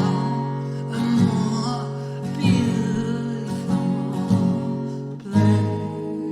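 Acoustic guitar playing the closing chords of a song, struck roughly once a second, with a final chord about five seconds in left ringing.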